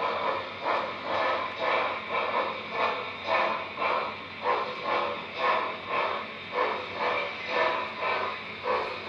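Model freight cars rolling past on the track, their wheels giving a regular rhythmic clatter about twice a second.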